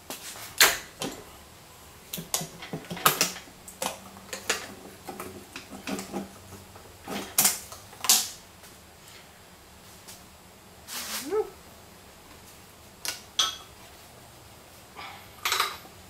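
Irregular knocks and clanks of metal parts being handled as the intake manifold is worked loose and lifted off a Honda B18C5 engine.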